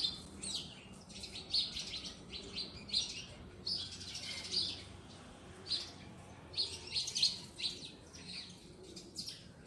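Birds chirping: many short, high chirps in irregular clusters.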